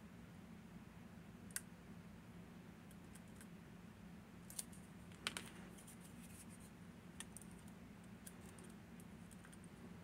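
Faint, scattered clicks and ticks of lock picks working the pins of a Miwa VM88 cam lock during picking, a few sharp clicks standing out, the loudest about five seconds in.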